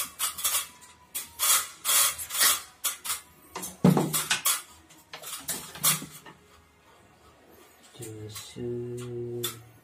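A series of short rustles and scrapes from hands working wires in an electrical panel, loudest in the first half, the biggest one about four seconds in; near the end a man's voice briefly hums or speaks.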